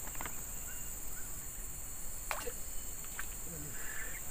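A steady high-pitched chorus of insects, with a sharp click just after the start and another about two seconds in.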